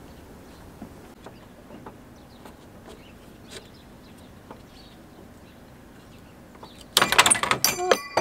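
Quiet outdoor background with faint small clicks, then about seven seconds in a sudden loud metal clatter with ringing, as a small solar panel slips and bangs on its metal mounting arch and nearly falls.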